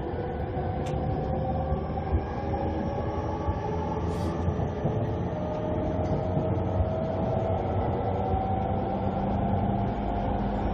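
Running sound inside a JR East E231-500 series electric train car: a steady rumble of wheels on rail under a Mitsubishi IGBT-VVVF inverter and traction motor whine that rises slowly in pitch.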